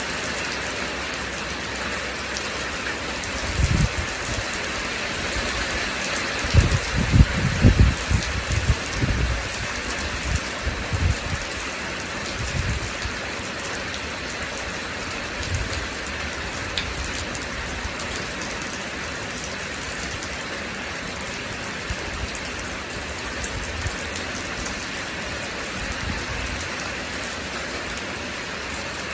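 Steady rain falling in an even hiss. A run of irregular low thumps and rumbles breaks in about a few seconds in, heaviest near the quarter mark, and fades out before the halfway point.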